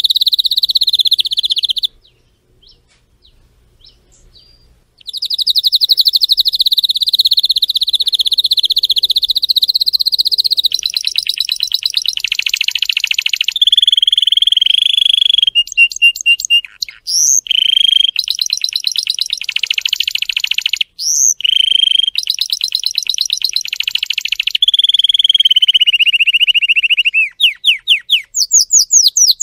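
Domestic canary singing: long, fast trills and rolls, high-pitched, with a pause of about three seconds near the start and a run of quick sweeping notes near the end.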